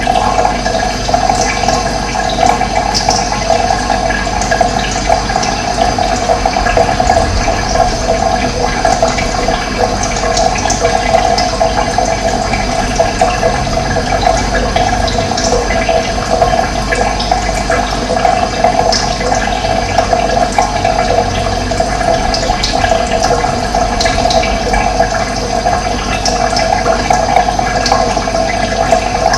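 Running water, a steady rush with no pauses.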